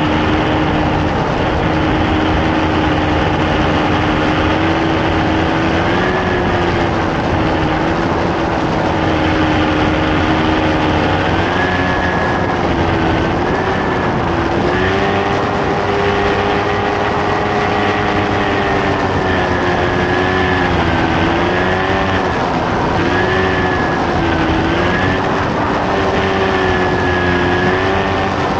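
Tandem paramotor trike's engine and pusher propeller running in flight: a steady, loud drone whose pitch holds level at first, then wavers up and down with the throttle through the second half.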